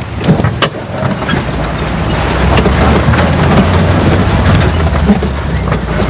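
Off-road 4x4's engine running under a steady low rumble heard from inside the cab, with the cab knocking and rattling over rough trail; a couple of sharp knocks come in the first second.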